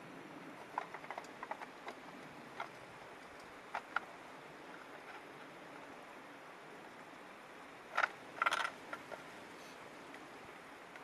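Steady, quiet rush of a river with scattered light clicks and knocks, a louder cluster of them about eight seconds in.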